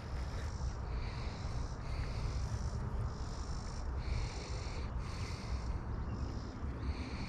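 Wind rumbling on the microphone, with insects calling in the background in pulses about once a second.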